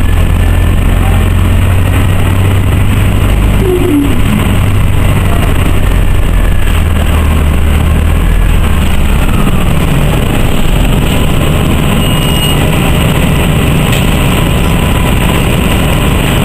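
Orion V transit bus's Detroit Diesel Series 50G natural-gas engine and Allison transmission running, heard from inside the passenger cabin over road noise. About nine seconds in, the deep, steady engine hum gives way to a somewhat higher drone.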